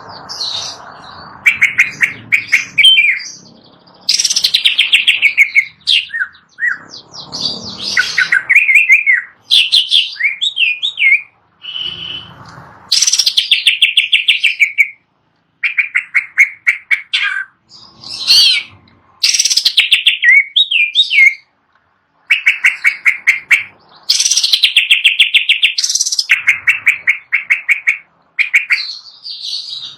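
Cucak ijo (green leafbird) singing in a long run of loud phrases, each one to two seconds of fast chattering note trains and rising and falling whistles, with short pauses between.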